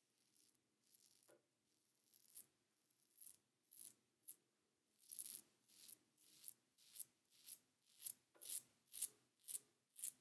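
Manscaped Plow 2.0 safety razor with a Wilkinson Sword Classic blade scraping through lathered stubble on the neck in short strokes on an against-the-grain pass. The strokes are sparse at first, then come about two a second and louder in the second half.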